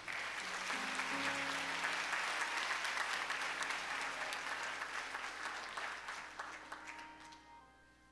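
Congregation applauding, with a few held musical notes sounding underneath; the clapping fades away near the end.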